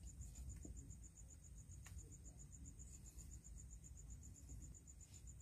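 Near silence: room tone with a faint high-pitched trill pulsing about ten times a second, and one faint click about two seconds in.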